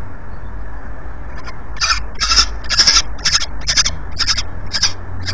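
Peregrine falcon calling: a run of about eight short, harsh calls, roughly two a second, starting about two seconds in, over a steady low rumble.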